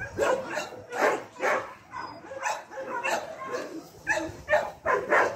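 A dog barking repeatedly in short, uneven barks, about two a second.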